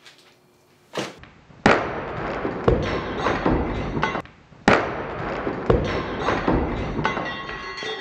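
A wooden door being kicked in against its deadbolt: a sharp thud about a second in, then a series of loud heavy thuds over several seconds as the wooden door frame splits and tears away at the deadbolt strike.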